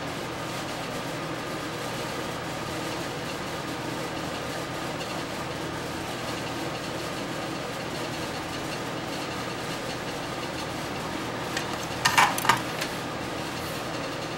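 Steady background hum, with a brief cluster of sharp small clicks and taps about twelve seconds in.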